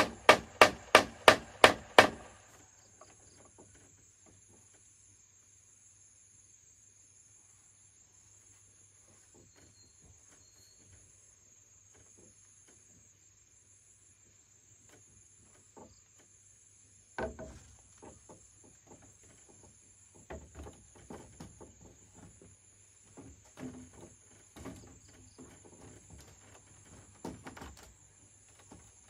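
Rapid sharp strikes on bamboo, about three a second, that stop about two seconds in. Insects chirr steadily and faintly throughout, with a pulsing high chirp. Later come scattered lighter knocks and clatter of bamboo being handled.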